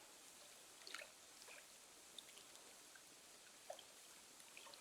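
Near silence: faint trickling river water with a few soft clicks, the sharpest one near the end.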